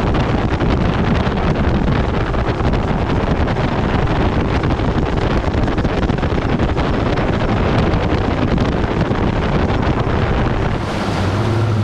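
Wind buffeting the microphone over the running of a boat under way. About a second before the end the wind noise drops and a steady low engine hum comes through.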